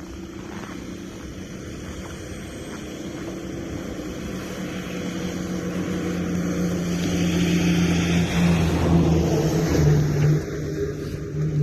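A vehicle engine humming and growing steadily louder as it draws near, loudest about eight to ten seconds in, its pitch dropping about ten seconds in.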